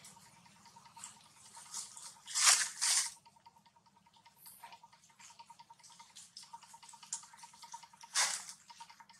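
Dry leaf litter rustling and crackling as monkeys move on it, with two loud bursts about two and a half seconds in and another near the end, and faint crackles between.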